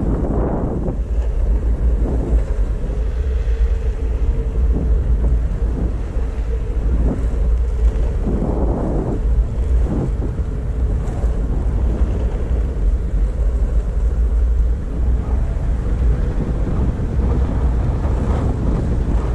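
Wind buffeting the microphone of a rider on a moving electric all-terrain skateboard, a steady low rumble, with a faint steady tone for a few seconds early on.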